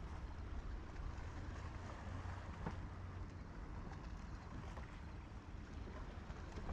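Steady wind rumbling on the microphone over water lapping at the hull of a small fishing boat, with a faint click once or twice.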